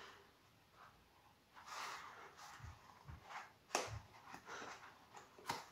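Faint handling sounds of a paper towel roll being worked at to free something stuck in its core: soft paper rustling, a few light clicks and some dull knocks.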